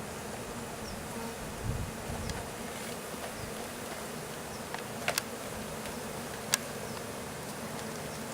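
Honeybees buzzing in a steady hum around a newly installed bee package and hive. A few sharp clicks about five seconds in and again about a second and a half later, and a brief low rumble near two seconds.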